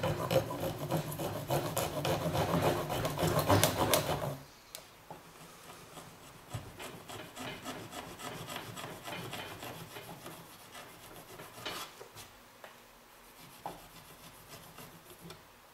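A serrated bread knife sawing through a rubber pool-table cushion with rapid back-and-forth strokes, trimming the cushion end to the pocket angle. The strokes are loud for about the first four seconds, then turn much quieter and lighter for the rest.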